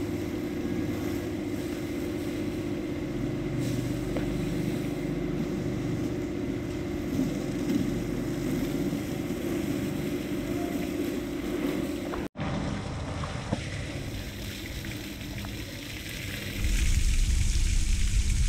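Pressure-washer spray hitting a pickup's tailgate and bumper and water pouring off into the wash pit, over a steady low hum. The sound drops out for an instant about twelve seconds in, and near the end the splashing of water falling into the pit becomes louder and closer.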